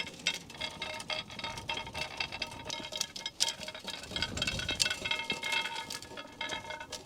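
Irregular metallic clinking and jingling, with light ringing tones that overlap and hang on between the clicks.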